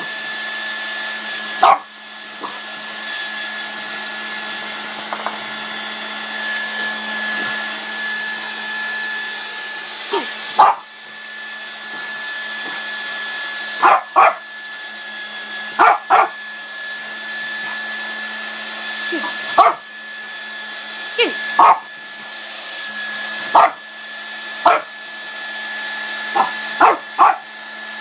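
Handheld hair dryer blowing steadily with a fixed high whine, while a French bulldog barks at it in short single barks, about a dozen times, coming closer together in the second half.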